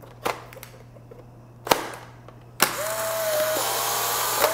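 Two sharp clicks as a film cartridge is loaded into a refurbished Polaroid 600 camera and the film door is shut, then the camera's motor whirs steadily for about two seconds as it ejects the dark slide from the pack, a sign that the camera's electronics and drive work.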